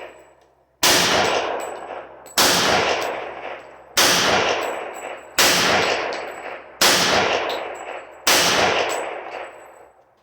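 Six shots from a Hi-Point JHP .45 ACP semi-automatic pistol, fired slowly at about one every one and a half seconds, each with a long echoing decay. The pistol fires through the string without a stoppage.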